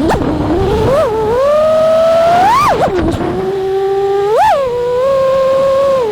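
Brushless motors of a five-inch FPV racing quadcopter (T-Motor F60 Pro4 1750kv) spinning three-blade props: a loud whine that rises and falls with the throttle. There are sharp throttle punches about one, two and a half, and four and a half seconds in. Wind rushes on the microphone during the first second.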